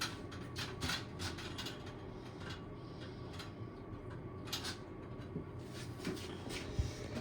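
Scattered light clicks and taps of a bathroom shelf being handled and positioned, over a steady low hum.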